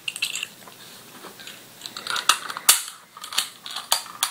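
Scattered clicks and light rattles of a spring-powered BB pistol's small parts being handled as its stretched spring is fitted back into the gun.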